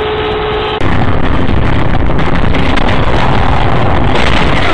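Loud wind buffeting and vehicle running noise on a dashcam's microphone. It cuts in abruptly about a second in, replacing a steady tone.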